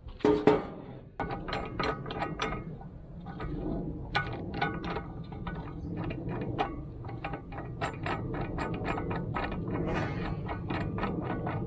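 A hand ratchet wrench clicking rapidly over and over as a bolt on the mini excavator's quick coupler is tightened, after a loud metal knock just at the start.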